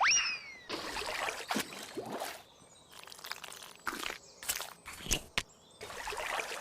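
Cartoon sound effects: a quick rising whistle-like glide at the start, then a run of short swishes, splashy noises and sharp clicks.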